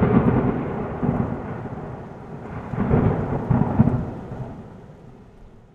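Thunder sound effect: a rumbling crash that swells again about three seconds in, then fades away.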